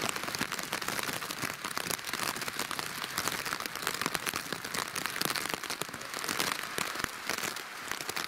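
Heavy tropical-storm rain coming down steadily, a dense hiss with many separate drop hits close to the microphone.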